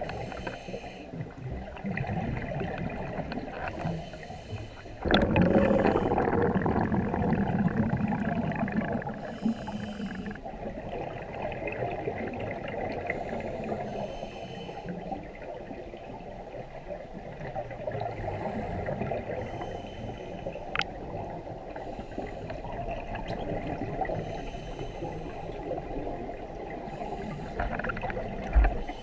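Underwater sound of a scuba diver breathing through a regulator: short hissing breaths recur every few seconds over a steady underwater rumble. A loud rush of exhaled bubbles starts suddenly about five seconds in.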